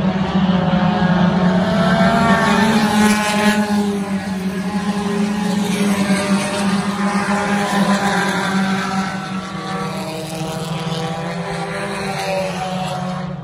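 Engines of a field of dirt-track race cars, among them a Ford Focus, revving up and down as they circle the oval. It is loudest in the first few seconds and eases off as the pack moves away.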